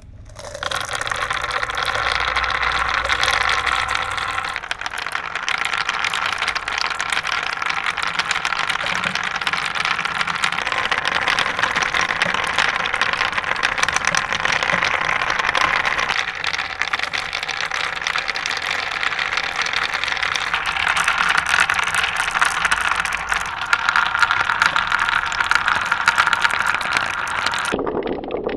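Many marbles rolling and clattering down plastic marble-run track, a dense continuous rattle that starts abruptly just after the opening.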